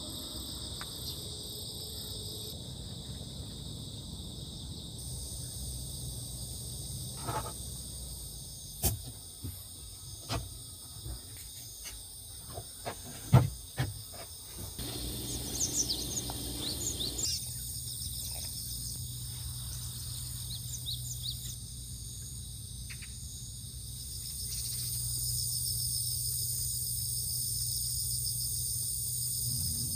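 A steady, high-pitched chorus of insects trilling. Partway through there is a run of sharp knocks and clicks, the loudest a little past the middle, followed by a few short high chirps.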